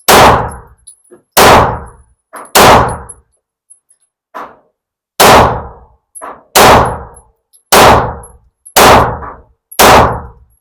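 Glock 19X 9mm pistol fired eight times in a string, about a second between shots, with a pause of about two and a half seconds after the third shot.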